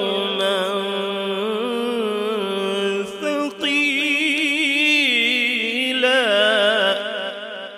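A man reciting the Qur'an (tilawat) in the melodic mujawwad style through a microphone and PA: long held notes with wavering, ornamented pitch. There is a short breath about three seconds in, and the voice trails off near the end.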